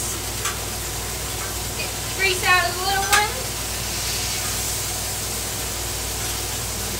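Ground-beef burger patties sizzling steadily on a Blackstone flat-top griddle, with a metal spatula scraping and tapping on the steel cooktop. A brief voice sounds about two seconds in.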